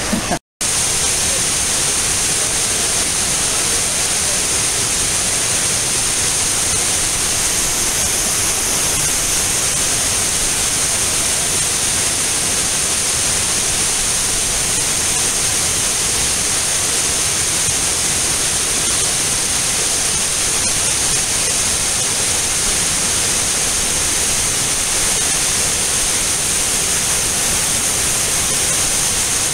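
Steady rushing roar of a cascading waterfall pouring over rock ledges into a pool. It follows a brief dropout to silence about half a second in.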